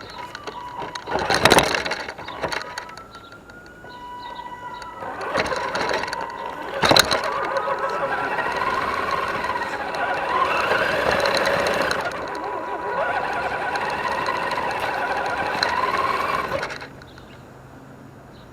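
Electric motor and geared drivetrain of an Axial SCX10 DeadBolt RC rock crawler whining, the pitch rising and falling with the throttle, heard from a camera on the truck's hood. Sharp knocks of the truck on the terrain come about 1.5 s and 7 s in. The drive noise stops suddenly about 17 s in.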